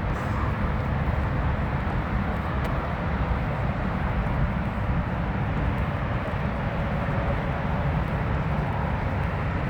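Steady noise of highway traffic, with no single vehicle standing out.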